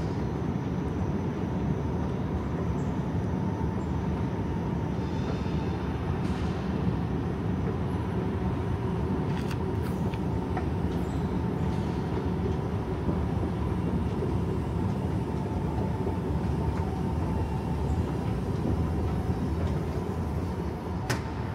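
Steady low rumble of vehicles, with a faint constant tone running through it.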